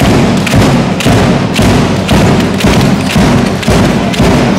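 Loud, steady drum beat, about two heavy thumps a second over a low, continuous bass.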